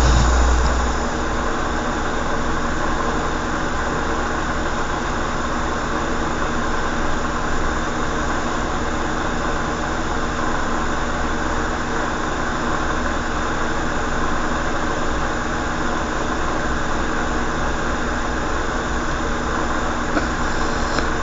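A steady mechanical hum: an even noise with a low rumble and several faint fixed tones, unchanging throughout.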